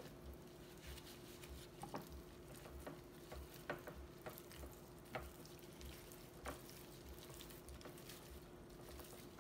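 Raw seasoned chicken wings squelching faintly as gloved hands rub and turn them in a glass baking dish to coat them in the marinade, with scattered soft clicks.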